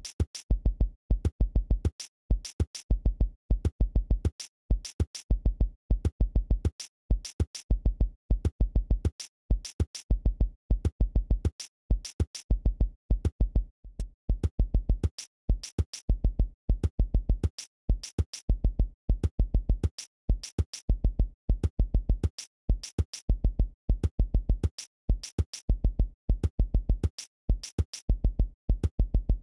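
Background electronic music with a drum-machine beat: deep bass thumps and sharp ticks in a fast repeating pattern, broken by short silent gaps.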